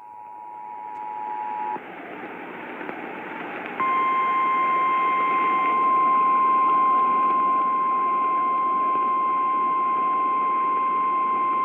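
Emergency alert tones received over a radio with static hiss underneath: a two-tone EAS attention signal cuts off about two seconds in, and about two seconds later a single steady NOAA Weather Radio warning alarm tone starts and holds, louder, to the end, signalling an incoming tornado warning.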